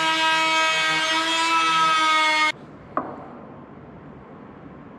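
Plunge router running at speed with a steady high whine while routing along a guide rail in wood. It cuts off abruptly about two and a half seconds in, followed by a single sharp click and low room noise.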